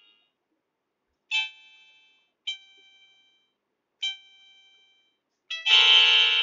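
Toy electronic keyboard played by a small child: three single notes pressed one at a time, each fading away, then a louder clash of several keys pressed together near the end.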